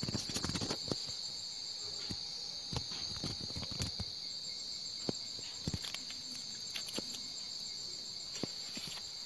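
Steady high-pitched chirring of night insects, with scattered short clicks and taps over it.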